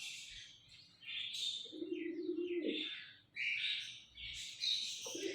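Small birds chirping in quick, overlapping high calls, while a pigeon coos twice, each low coo about a second long.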